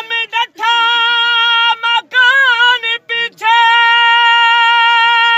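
A man singing a Punjabi dhola folk song in a high voice with no drum: long held notes, a wavering passage about two seconds in, then one long steady note.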